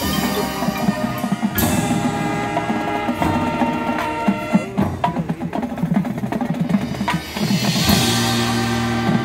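Marching band playing live, with mallet percussion, wood block and drums from the front ensemble over held wind notes. A sharp crash comes about a second and a half in, and a loud high wash swells near the end as low notes are held.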